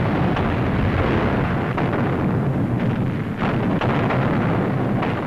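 Artillery shells exploding: a continuous heavy rumble of shellfire with several sharper blasts through it, on an old newsreel soundtrack.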